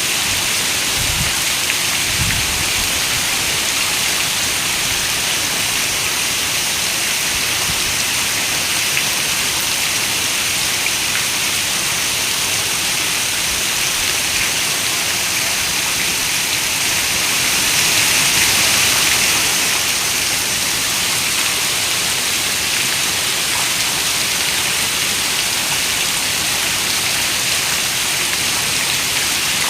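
Steady rain, an even hiss of many drops, swelling slightly a little past the middle. Two short low rumbles come about one and two seconds in.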